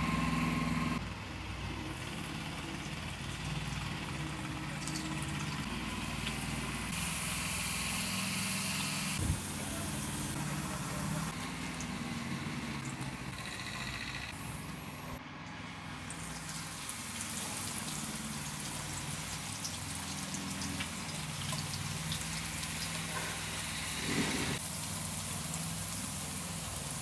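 Cooking sounds in short cut-together clips: oil poured into a carbon-steel pan on a charcoal grill, then potato slices frying in the hot oil with a sizzling hiss, over a steady low rumble.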